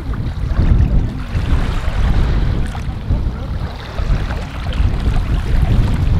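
Strong wind buffeting the microphone in a loud, gusty rumble, over choppy open bay water lapping.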